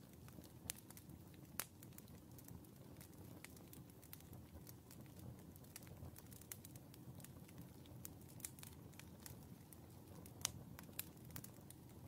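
Faint crackling of split logs burning in a fireplace on a bed of embers: irregular sharp pops and ticks over a steady low hiss of the flames, the loudest pop about ten seconds in.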